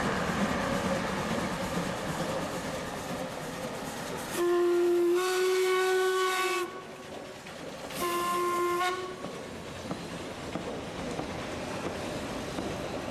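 The whistle of the 1946 Đuro Đaković-built narrow-gauge steam locomotive 83-180 blows twice, a long blast of about two seconds and then a shorter one about a second later. Under the whistle runs the steady sound of the train working.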